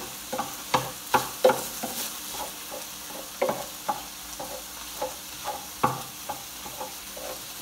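Ground beef frying in an electric skillet, a steady sizzle, while a utensil stirs it, with irregular taps and scrapes against the pan.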